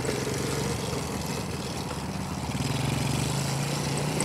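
Small 125cc four-stroke kids' quad's engine running as it is ridden, a steady hum whose pitch wavers slightly.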